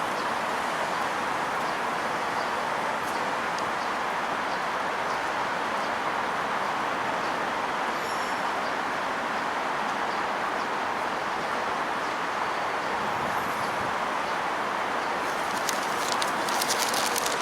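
Strong wind blowing, a steady rushing noise, with a few faint clicks near the end.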